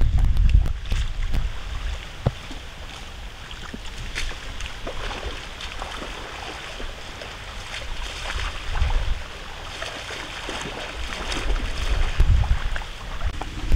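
Water splashing and sloshing as a person wades through a shallow lake and churns it with her hands, in many short irregular splashes. Low rumbles of wind on the microphone come and go, loudest about a second in and again near the end.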